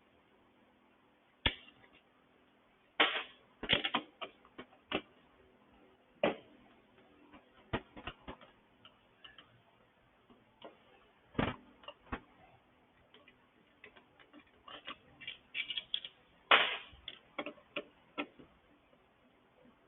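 Hand tools on a Honda GCV small engine's bolts: irregular sharp metallic clicks and clinks of a socket wrench and extension, with a quicker run of clicks near the end.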